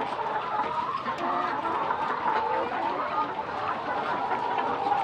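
A flock of laying hens clucking and calling over one another, many short calls overlapping in a steady chorus.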